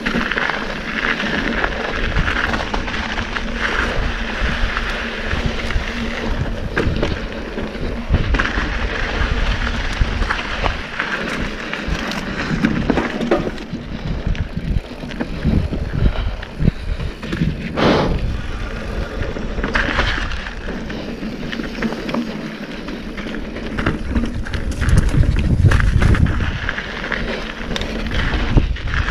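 Mountain bike being ridden fast down dirt singletrack and over rock: steady tyre noise on dirt and rock, with the bike rattling and knocking over bumps. Wind rumbles on the microphone, heaviest about three quarters of the way through.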